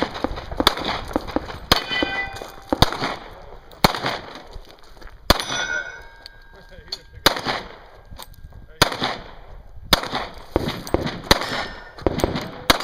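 A string of gunshots fired at an irregular pace, with steel targets ringing after some of the hits.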